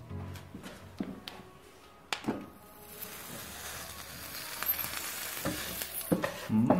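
Turkey sausage sizzling and frying against a glowing-hot kitchen knife as the blade slices through it, a steady hiss that grows louder over the last few seconds. A few sharp knocks come in the first two seconds.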